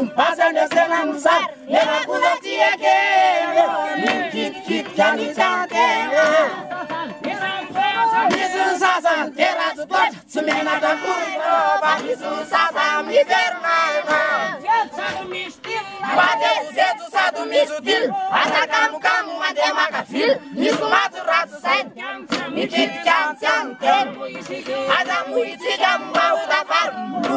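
Hira gasy troupe of men and women singing loudly together in Malagasy, with sharp percussive hits running through the song.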